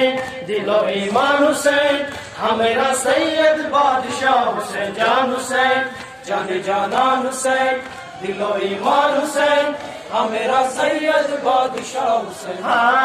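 Men chanting a noha, a Muharram lament for Husain, into a microphone: a lead reciter singing long drawn-out phrases, with other voices joining.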